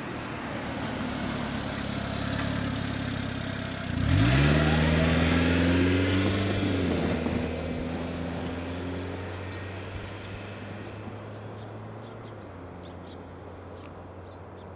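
A motor vehicle's engine revs up sharply about four seconds in, holds a steady pitch for a few seconds, then fades away slowly.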